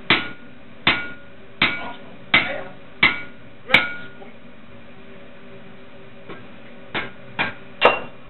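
Striker's hammer hitting a handled punch driven into a hot 25 mm square steel bar on an anvil, hot-punching a hole. Six even blows about two-thirds of a second apart, each with a short metallic ring, then a pause of about three seconds and three more blows near the end.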